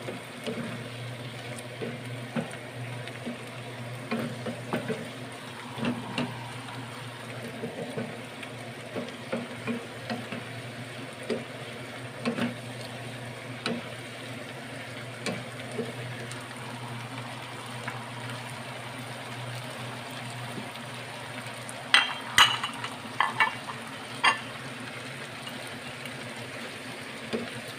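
Sliced green chilies simmering and sizzling in a little water in a frying pan, stirred and scraped with a wooden spatula in frequent small scrapes. About 22 to 24 seconds in come a handful of louder clacks of the utensil against the pan.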